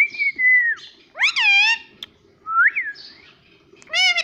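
Indian ringneck parrot (rose-ringed parakeet) whistling and calling in four separate calls. The first is a long high whistle that drops at its end, then comes a rising-and-falling call, then a short rising whistle, and a brief call near the end.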